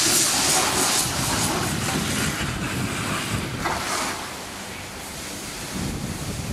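Articulated cattle lorry moving slowly across wet concrete, its engine and tyres a low rumble under a rushing of wind on the microphone. The rushing is loudest just after the start and again about four seconds in.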